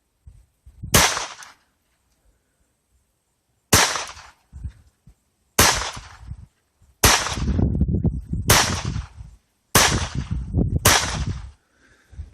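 Seven .22 LR shots fired one at a time from a Phoenix Arms HP22A semi-automatic pistol. Each is a sharp crack with a short tail, about one to two and a half seconds apart.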